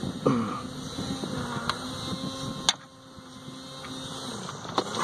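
Sharp metallic clicks of a throttle linkage and its cable clip being handled and worked loose, the loudest a little past halfway, over a steady low hum.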